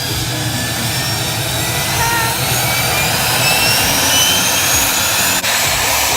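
Aircraft turbine engine running loudly, its high whine slowly rising in pitch over a steady low rumble. A brief click near the end.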